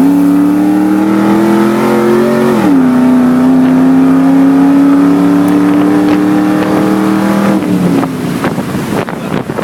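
Car engine at full throttle in a race, its pitch climbing slowly, dropping sharply at an upshift about 2.7 seconds in, then climbing again until the throttle is lifted near the end, when the engine note falls away into wind and road noise.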